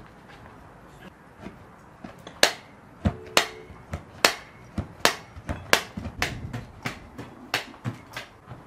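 Hand-held needle meat tenderizer pressed again and again into raw beef steak on a wooden board: sharp clicks and knocks, about two a second, starting a couple of seconds in.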